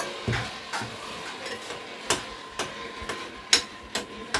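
A spoon stirring pap in a bowl, clinking and knocking against the sides at irregular moments, over the faint sizzle of akara frying in oil.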